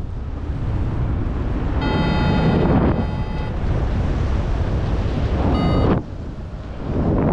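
Airflow rushing over the microphone in paraglider flight. An XCTracer variometer's electronic tone sounds from about two seconds in for a second and a half, and again briefly near six seconds: the climb signal that a vario gives in lift.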